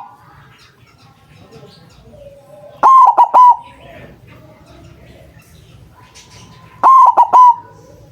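White zebra dove cooing: two loud phrases of its stuttering song, about four seconds apart, each a quick run of a few notes.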